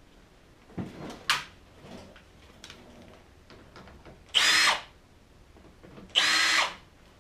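A drill spins a Woody's stud sharpening tool onto steel snowmobile track studs in two short bursts of about half a second each, with a steady motor whine, grinding a new point on each stud. A knock and a sharp click come about a second in.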